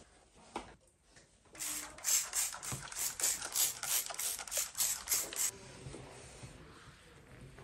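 Trigger spray bottle of all-purpose cleaner pumped rapidly, about three to four hissing squirts a second for some four seconds, onto a smooth desk top. A microfibre cloth then wipes the wet surface, faint.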